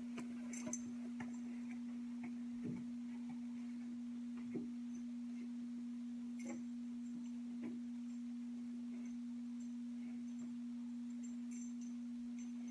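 A steady, even hum on one low pitch, with a few faint, scattered knocks and clicks.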